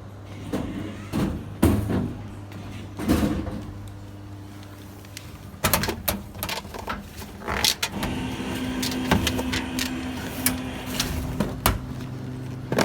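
Arcade prize machine being played: its mechanism gives a run of clunks and knocks, busiest from about six seconds in, with a steady hum through the second half.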